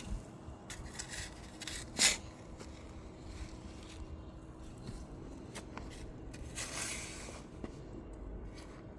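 Digging in garden soil: scattered scrapes and scuffs of dirt being turned over, with one sharp knock about two seconds in and a longer scrape a little before seven seconds.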